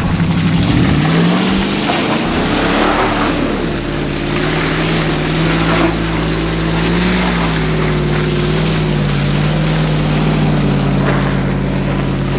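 Pickup truck engines driving slowly past on a dirt trail. The engine pitch rises and falls over the first few seconds as a truck accelerates, then holds fairly steady.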